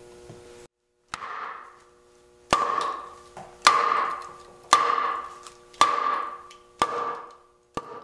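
Steel froe blade struck seven times, about once a second, with a club of Russian olive log, driving it down into a hard, heavy log to split it. Each blow is a sharp knock followed by a short ring that fades; the first and last blows are lighter.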